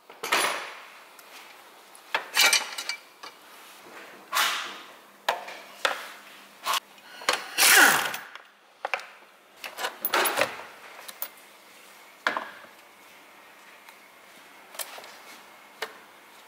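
Irregular clicks, knocks and rattles of plastic and metal as a hand tool works the clips and hose clamps and the plastic air filter housing and intake hose are pulled loose in a car's engine bay. A longer scrape about eight seconds in is the loudest.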